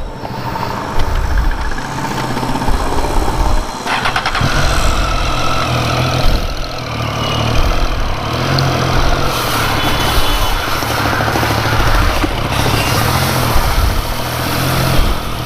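Triumph Street Triple's three-cylinder motorcycle engine, briefly cut off about four seconds in, then starting and running steadily.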